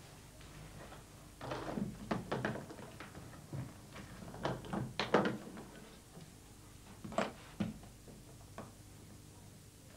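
Clothes rustling and the case knocking as they are crammed into a briefcase and the lid pressed down, then two sharp clicks about seven seconds in as its latches are snapped shut.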